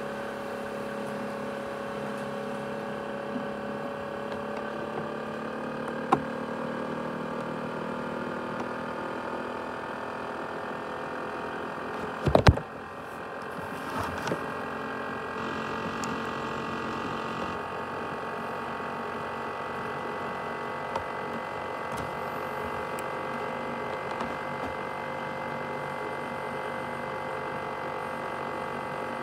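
Asus X543UA laptop's CPU cooling fan running, a steady whine of several tones that drift in pitch during the first few seconds. A single sharp knock comes about twelve seconds in.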